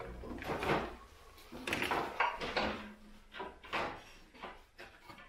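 A person climbing up onto a compact tractor's backhoe seat: irregular rustling and clunks from clothing, boots and the machine's metal frame, with a brief creak a little before the middle.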